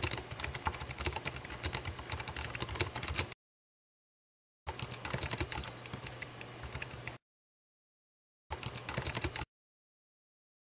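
Rapid computer keyboard typing in three runs: a long one of about three seconds, a second of about two and a half seconds after a short pause, and a brief third near the end, with silence between them.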